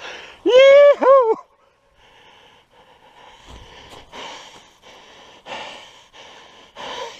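A loud, drawn-out cry in two rising-and-falling notes, then footsteps crunching and rustling irregularly through dry lichen, moss and twigs on the forest floor.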